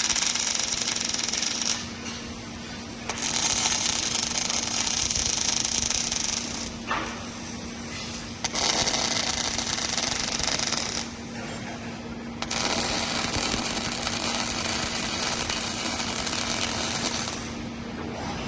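Robotic arc welding on a Regal Robotics RGL06-2000-W welding robot. The arc crackles in runs of a few seconds each, four welds in all with short pauses between them, over a steady low hum.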